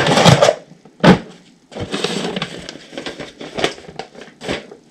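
A heavy black plastic tub of potatoes is dragged across a concrete floor, with a thump about a second in, followed by uneven scraping and paper rustling.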